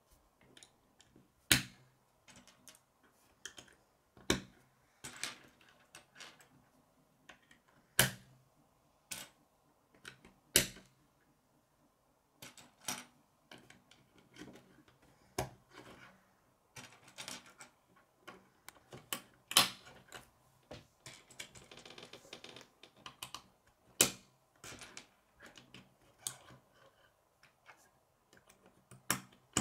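K'nex plastic rods and connectors being snapped together and set down on a wooden tabletop: irregular sharp clicks and taps, a few of them much louder than the rest.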